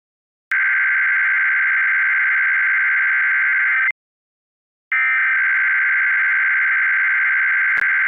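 Emergency Alert System SAME header: two bursts of rapid digital data warbling, each about three and a half seconds long, a second apart. They are the coded header that opens a new tornado watch alert. A brief click comes near the end.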